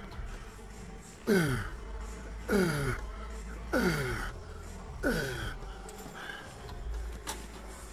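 A man groaning with effort on each rep of lying leg curls: four loud groans that fall in pitch, spaced about a second and a quarter apart, followed by a single sharp click near the end.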